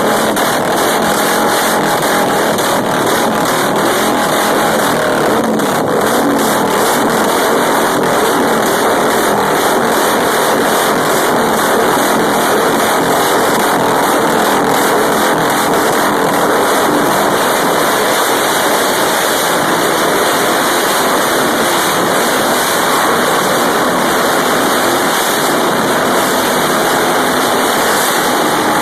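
A loud motor running steadily, with no pauses or clear changes in pitch.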